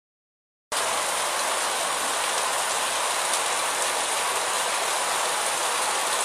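Rainwater rushing over a paving-stone street along the curb, with rain falling: a steady, even rushing noise that cuts in abruptly after a short moment of dead silence.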